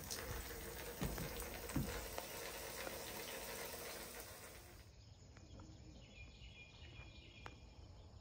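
Low steady hiss with two soft thumps, then after an abrupt cut, quieter outdoor background with faint bird chirps and a few sharp clicks.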